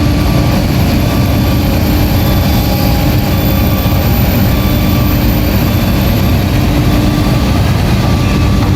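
Heavy diesel engine of a Kobelco excavator running steadily under work, a deep continuous rumble with a faint thin high whine above it.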